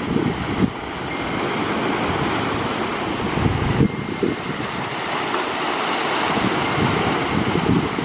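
Sea waves washing and splashing over rocks, with a steady rush of surf and foam. Wind gusts buffet the microphone with a low rumble.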